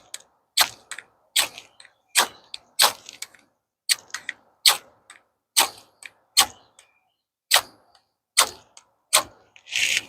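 Spine of a SOG SOGZILLA pocketknife scraped hard down a ferro rod again and again, about a dozen sharp rasping strikes a little under a second apart, throwing sparks at twine tinder. The last strike, near the end, is a longer scrape.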